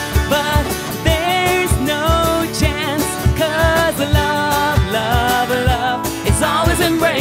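Live pop song played by a band: singing over instruments with a steady drum beat.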